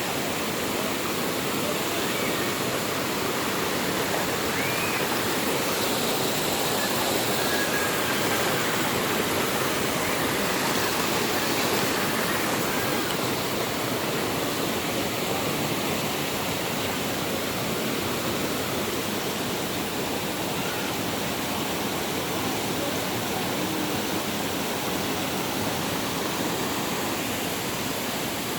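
Düden Waterfall's water pouring down in a steady, even rush.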